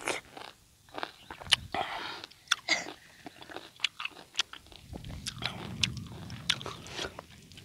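A person chewing a mouthful of peeled lemon up close, with many short wet clicks and smacks of the mouth.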